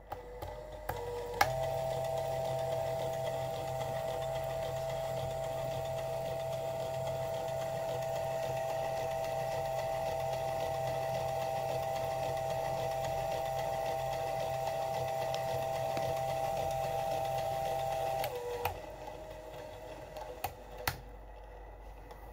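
A 3D-printed plastic double Scotch yoke mechanism driven by a small electric motor, running at a steady speed with an even whirring hum. It starts with a click a little over a second in, then near the end slows with a drop in pitch and winds down, with a few sharp clicks.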